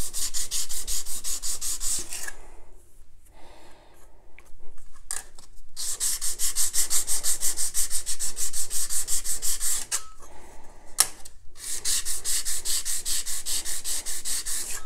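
A steel card scraper rubbed flat, back and forth, on a diamond sharpening stone, with quick grinding strokes about five a second. The strokes come in three spells with short pauses after about 2 s and about 10 s. The face is being flattened to grind off the last of the old edge.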